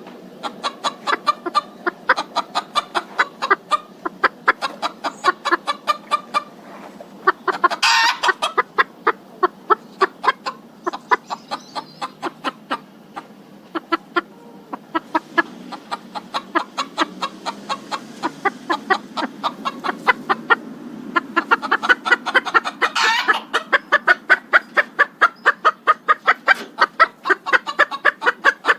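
Chickens clucking continuously, many short calls a second, with a louder squawking call about eight seconds in and another near twenty-three seconds.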